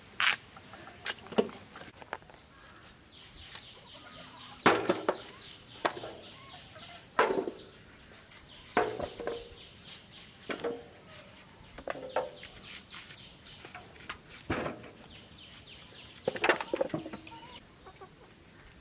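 Chickens clucking, among irregular sharp knocks every second or two as pumpkin is cut into thick chunks.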